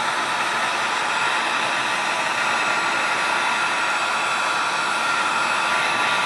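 Hair dryer blowing hot air steadily, heating a stuck part of a transistor radio so that it loosens and lifts.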